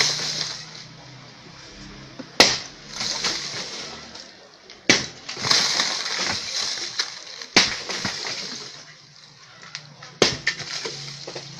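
Sledgehammer striking concrete-block masonry: four heavy blows about two and a half seconds apart, each followed by broken blocks and rubble clattering and trickling down.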